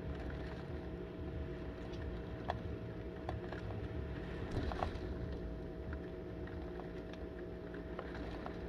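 Heavy driving rain and gusty wind: a steady rushing hiss over a low rumble, with scattered sharp ticks of drops striking close by, most of them bunched just before the middle.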